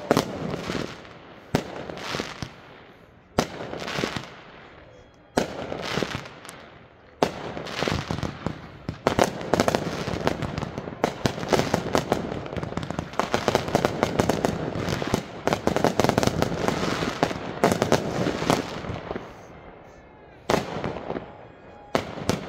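Aerial fireworks launching and bursting. Single sharp bangs come about every two seconds, then a dense run of rapid overlapping bursts and crackle fills the middle, thinning back to a couple of separate bangs near the end.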